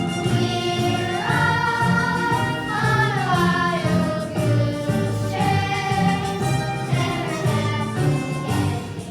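A youth theatre cast singing together in chorus over an instrumental accompaniment, with long held notes that slide between pitches over a steady bass line.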